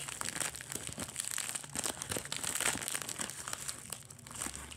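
Packaging being crinkled and rustled by hand as a mailed toy is unwrapped: a run of irregular crackles that thins out a little near the end.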